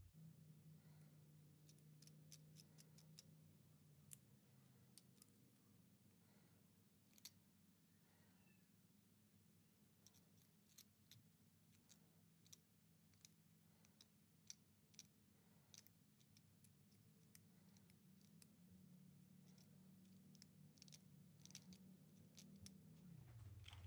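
A small hook scorp scraping and paring wood out of the broken end-grain face of a plane tote, hollowing it slightly. It makes quiet, irregular crisp scrapes and clicks over a low steady hum.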